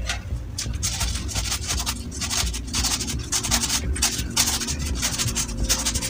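Fresh spinach and kale leaves being cut with a knife in the hand over a plate: short crisp rustling strokes, irregular, about two a second.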